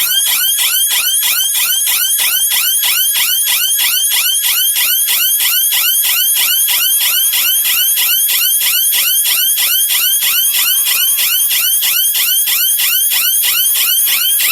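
Electronic alarm siren of a GSM alarm unit sounding loudly in quick repeating rise-and-fall sweeps, about three a second. The alarm has been tripped by its door reed switch being opened, so the siren runs its fixed 15-second cycle.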